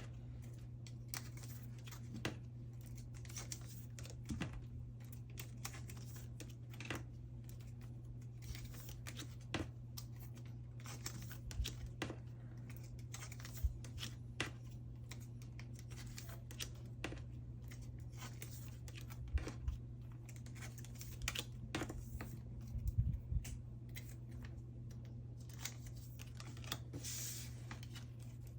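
Photocards being slid out of plastic sleeves by hand: scattered light taps, clicks and brief plastic rustles, over a steady low hum.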